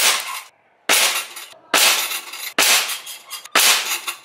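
Five sharp shots a little under a second apart, each with a short bright metallic ring: a Bocap Predator PCP air rifle firing pellets into a steel knock-down paddle target.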